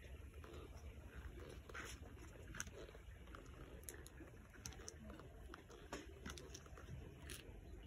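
Faint low rumble with scattered light clicks and taps, the sharpest about two and a half seconds in, at six seconds and near the end.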